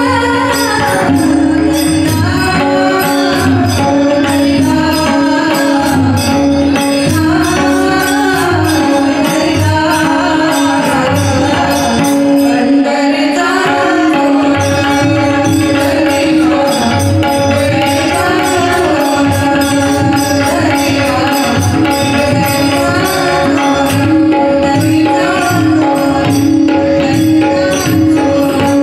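Marathi devotional abhang (bhajan) sung live by a woman over a steady drone, with harmonium and a hand drum keeping a regular beat.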